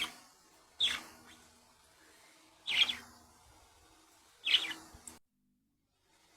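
Pet budgerigars calling: four short chirps, each falling in pitch, spaced one to two seconds apart. The sound cuts off abruptly about five seconds in.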